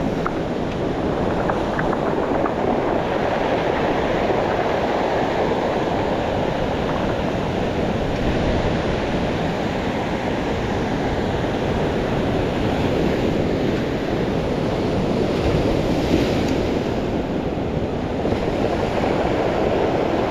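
Ocean surf breaking and washing over a cobble beach in a steady rush, with wind buffeting the microphone.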